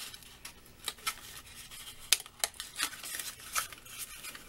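Small kraft cardboard box being handled and its flaps tucked shut by hand: light rustling with several sharp clicks and taps of the card.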